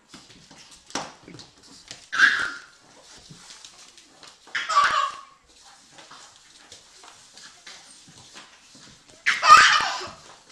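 A baby laughing in three short, loud bursts, the last the loudest.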